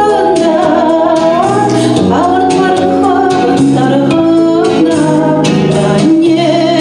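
A woman singing a Chuvash-language song over instrumental accompaniment, the melody gliding between held notes.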